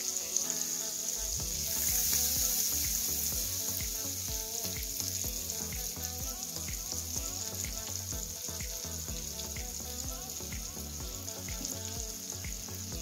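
Butter sizzling and foaming as it melts in a hot nonstick frying pan, a steady hiss that grows louder about two seconds in.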